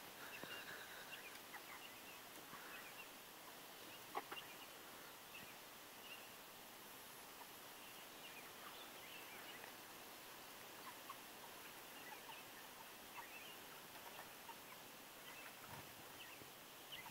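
Chickens clucking faintly and sporadically, with one sharp tap about four seconds in.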